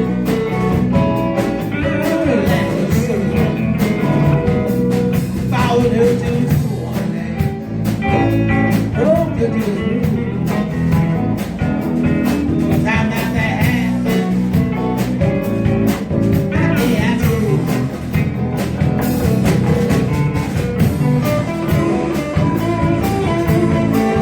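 Live blues band playing an instrumental stretch, with guitar over a steady drum beat.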